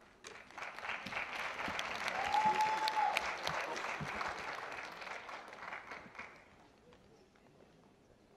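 Audience applauding, building over the first couple of seconds and dying away about six seconds in, with one short high tone about two seconds in. Near silence follows.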